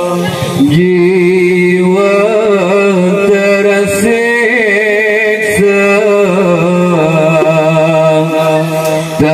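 Solo male voice singing a long, unaccompanied melismatic line through a microphone: the lead singer's (tok juara's) traditional dikir barat chant, with held notes and wavering ornaments.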